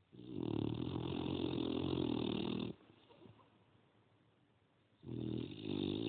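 French bulldog snoring in its sleep: one long rattling snore lasting about two and a half seconds, then a second beginning about five seconds in.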